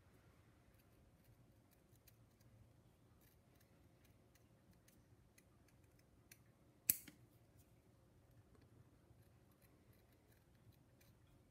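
Scissors snipping through leather while trimming a curved edge: faint, scattered small cuts, with one sharp, louder click about seven seconds in.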